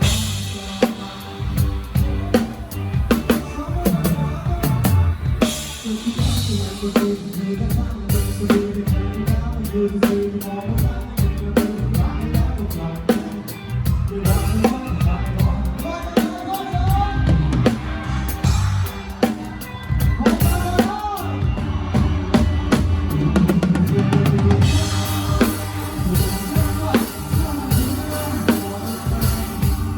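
Drum kit played live in a concert, with steady kick and snare strokes over the band's music, recorded on a phone.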